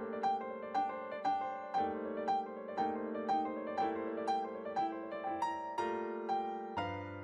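Background piano music: a gentle melody of evenly spaced notes, about two a second, over held chords.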